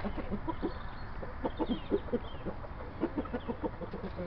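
Rhode Island Red rooster clucking in two runs of quick, short low notes, making a fuss at a rival rooster just outside the pen.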